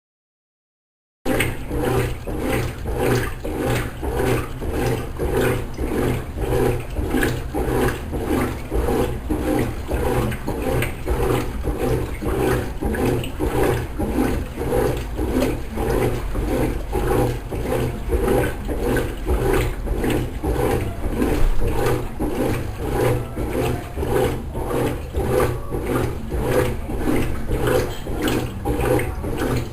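Consul Maré Super 10 kg washing machine in its wash cycle, churning clothes and water in a steady rhythm over a constant low motor hum. The sound starts abruptly about a second in.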